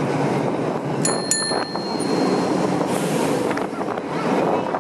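Open-top 1934 Blackpool boat tram running along street tracks, a steady rumble with wind buffeting the microphone. About a second in, a bell rings twice in quick succession.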